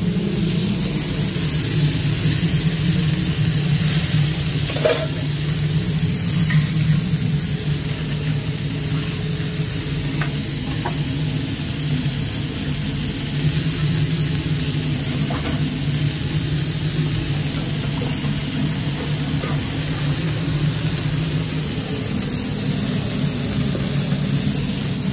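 Burgers sizzling steadily as they grill, over a steady low hum, with a few faint clicks.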